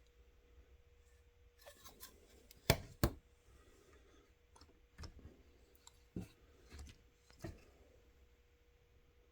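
Plastic LEGO pieces clicking and knocking as a brick-built shipping container is handled on a train car: two sharp clicks close together about three seconds in, then a few lighter knocks.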